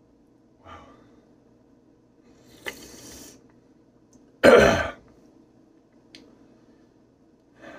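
A man's heavy breathing, with a long breathy exhale about two and a half seconds in, then one loud, short cough about a second later, from the burn of a very hot sauce in his mouth.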